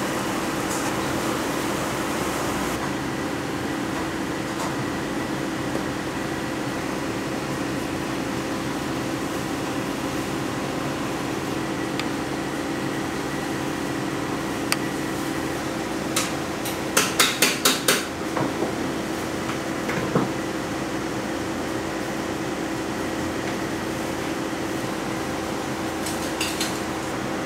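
A steady mechanical hum with a few steady tones in it, broken by sharp clinks of utensils against a ceramic ramen bowl. Single clinks come about halfway through, a quick run of about five follows, and a couple more come near the end.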